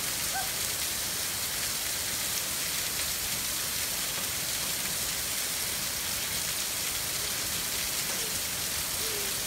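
Heavy rain falling steadily, with water pouring off an overflowing gutter and splashing onto a concrete driveway.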